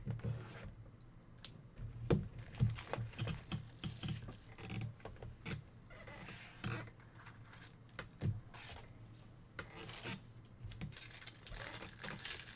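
Football trading card pack being opened and its cards handled: irregular scraping, rustling and soft clicks of foil and card stock.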